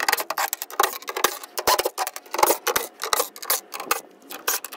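Milwaukee cordless driver backing out tailgate bolts: a fast, uneven run of sharp clicks and rattles with short pauses.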